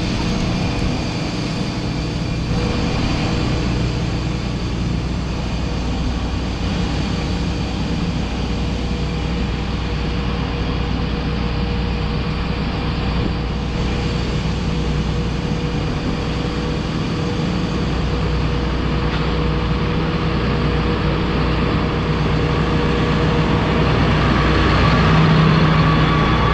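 Heavy machinery running steadily: a continuous mechanical drone with a steady hum, a little louder near the end.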